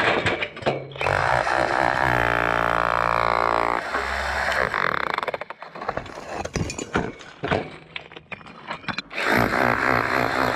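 Electric rotary hammer with a chisel bit chipping into old stone-and-mortar rubble, running in two spells: from about one second in to about four, and again from about nine seconds. Between them come scattered knocks.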